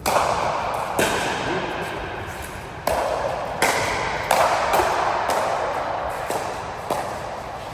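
A run of sharp hits at uneven spacing, about eight of them, each ringing out for most of a second in a reverberant room, as in a match rally.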